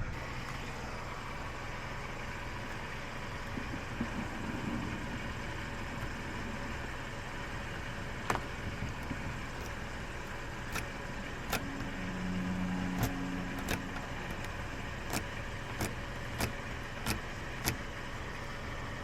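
A steady low hum with a scattering of sharp clicks, about a dozen, mostly in the second half. A short low drone comes in about twelve seconds in.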